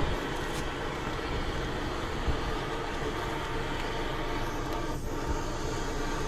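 Gusty wind buffeting the microphone: a steady rushing noise with a heavy low rumble.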